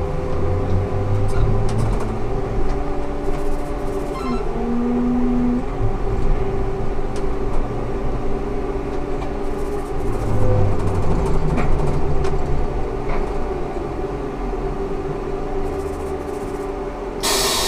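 Ikarus 280T articulated trolleybus running: several steady whining tones from the electric drive over a low rumble, one tone dipping to a lower pitch about four seconds in. A sudden burst of hiss comes near the end.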